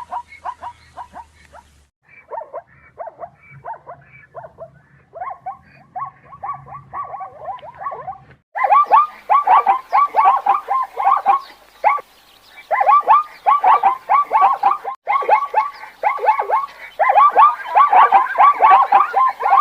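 Zebras barking: fast runs of short yelping calls, several a second, in bursts with brief breaks between them, louder from about eight seconds in.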